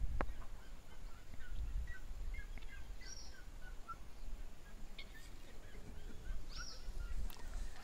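Flock of helmeted guineafowl foraging, giving scattered short, soft chirping contact calls. A higher whistled note sounds twice over them, with a low rumble underneath.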